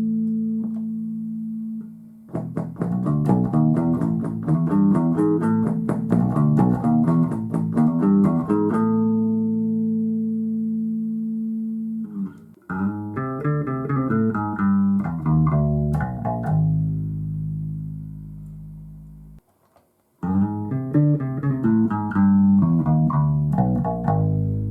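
Electric bass guitar played through an Ampeg BA-series bass combo amp. It plays bass lines in phrases: fast runs of plucked notes with sharp attacks, separated by long sustained notes that fade out, with a brief stop a little over three quarters of the way through.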